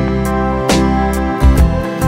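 Background music: a guitar-led instrumental with a steady drum beat.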